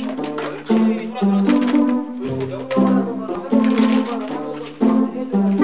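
Instrumental background music with short notes changing quickly.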